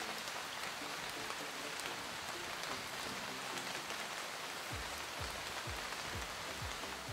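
Everclear poured from a bottle into a glass mason jar: a steady splashing pour. In the last two seconds there is a run of low thumps about every half second.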